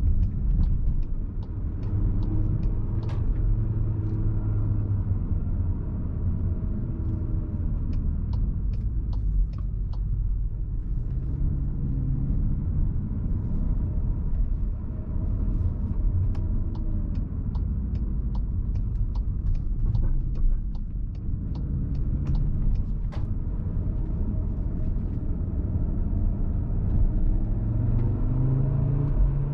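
Cupra Formentor VZ5's 2.5 TFSI five-cylinder engine pulling the car along, its pitch rising and falling several times as it speeds up and eases off, over a steady low road rumble. Scattered light sharp ticks run through it.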